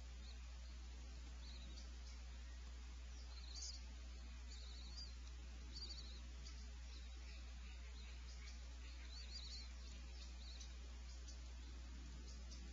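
Steady low electrical hum and hiss from a nest camera's microphone, with faint short high chirps a few times.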